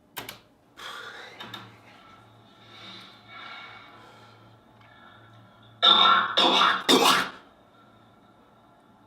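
A man coughing with a distortion effect on the coughs: softer throat sounds early on, then three loud distorted coughs in quick succession about six seconds in.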